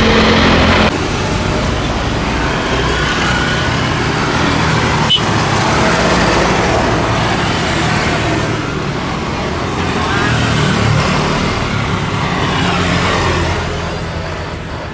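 Steady roar of vehicle engines and traffic noise. An abrupt change about a second in, then one sharp click about five seconds in.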